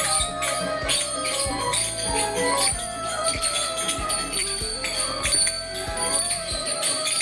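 Instrumental music with held melodic tones, a percussive beat and high jingling.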